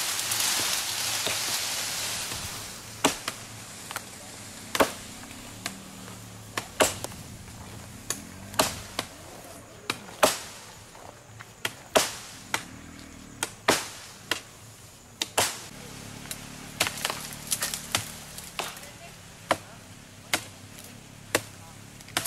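Wood being chopped by hand: sharp, separate strokes of a blade biting into wood, irregular, roughly one a second. It opens with a couple of seconds of leafy branches rustling as they are dragged through the undergrowth.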